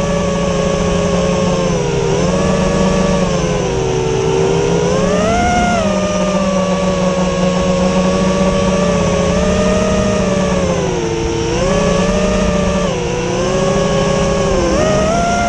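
FPV quadcopter's brushless motors and propellers whining, the pitch sliding up and down with the throttle: dipping about four seconds in, climbing again a second later, and rising once more near the end.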